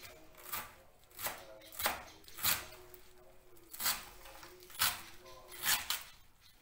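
Knife chopping celery and fresh coriander together finely: about seven separate sharp cuts, unevenly spaced.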